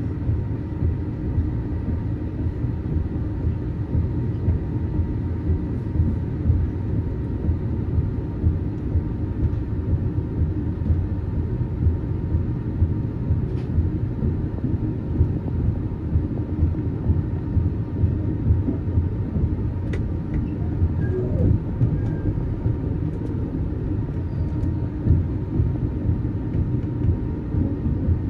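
Sleeper train running along the line: a steady low rumble of wheels on rails, with a faint steady high hum over it.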